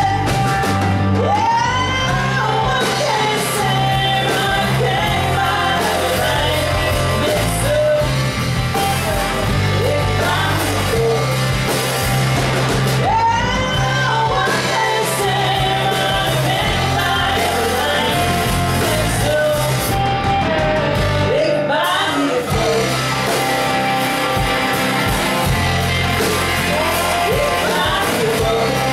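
Live country band playing: a woman sings lead over electric guitars, bass guitar and drums, heard in a large hall. The bass and kick drop out briefly a little after two-thirds of the way through, then come back in.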